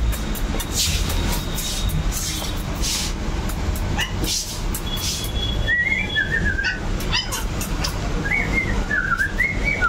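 Lhasa Apso puppies playing on a tiled floor: scuffling and clicking, then high, wavering whimpers twice in the second half, over a steady low hum.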